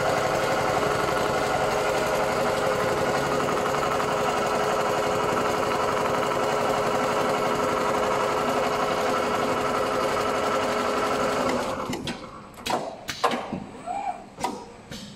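Richpeace CNC automatic sewing machine stitching steadily, its needle head running at a constant rate. It stops abruptly about twelve seconds in, leaving a few scattered clicks and knocks.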